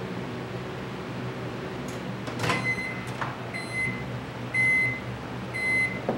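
Microwave oven's door latch clicking open, then its electronic beeper sounding four short high beeps about a second apart. A knock comes at the very end.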